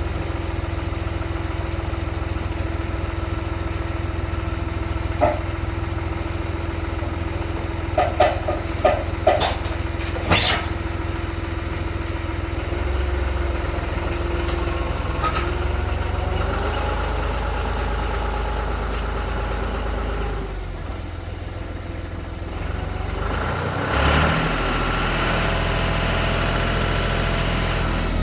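Tractor engine running steadily, its note shifting a couple of times, with a few sharp metallic knocks about a third of the way in as a log is loaded onto a sawmill.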